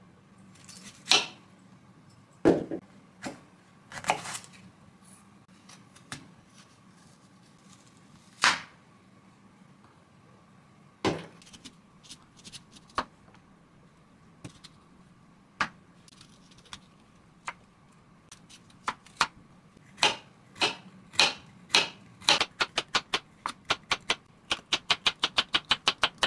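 Kitchen knife cutting a bitter melon on a wooden chopping board. There are a few separate knocks and cuts at first, then regular slicing from about two-thirds of the way in, speeding up to about five strokes a second near the end.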